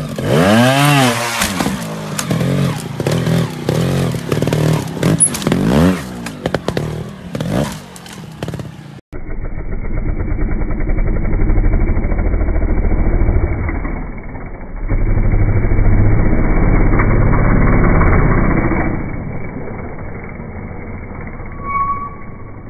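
Trials motorcycle engine revving in quick throttle blips, its pitch rising and falling, with sharp clatter of the bike on rock. About nine seconds in it cuts to another trials bike, heard duller and muffled, its engine running and revving harder in two long stretches.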